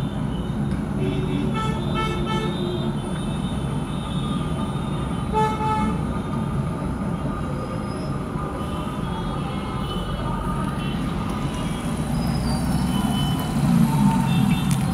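Steady background street noise of road traffic, with vehicle horns honking in short bursts now and then, a few times near the start and again near the end.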